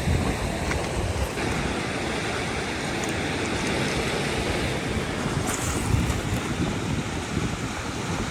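Small waves breaking and washing over a rocky, stony shore, a steady rush of surf, with wind buffeting the microphone in low gusts.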